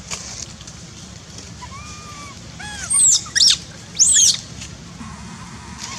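Baby long-tailed macaque screaming: a few soft, rising-and-falling whimpers, then three loud, shrill screams a little after three and four seconds in. These are the distress cries of an infant monkey.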